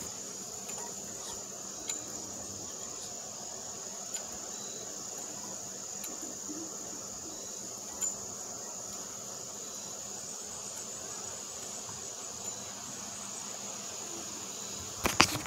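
Steady high-pitched insect drone, with a few faint taps and a louder knock near the end.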